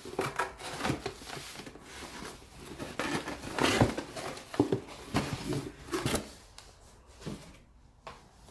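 A parcel being opened by hand: irregular rustling, tearing and knocking of the packaging, the loudest handling about halfway through, quieter near the end.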